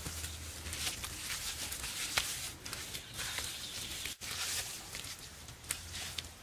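Wet mud mixed with straw being slapped and pressed by hand onto a bamboo frame wall: scattered soft pats and squelches, the sharpest about two seconds in, over a steady outdoor hiss.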